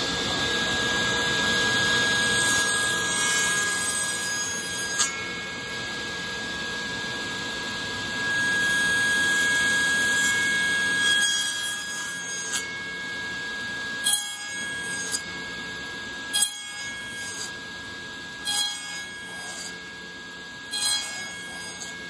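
SawStop table saw running with a standard blade, cutting a dado notch in a wooden board with repeated passes. Louder cutting near the start and again about a third of the way in, then shorter, sharper cuts every couple of seconds as the rest of the notch is cleared, over the saw's steady whine.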